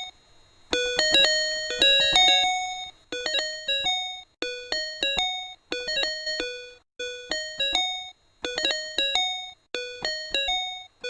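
Background music: a bright, chiming keyboard melody of short four- or five-note phrases, each note struck and left to ring, repeated over and over.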